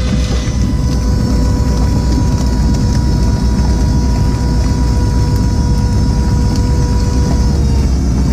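Fishing boat's engine running steadily, with a steady whine over it that sags slightly in pitch and fades near the end.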